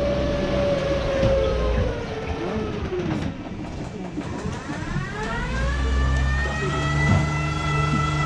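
Glass-bottom tour boat's drive motor whining. The pitch slides down and fades about three seconds in, then rises again from about four seconds in and settles into a steady higher whine over a low hum, as the boat throttles down and back up while being swung around.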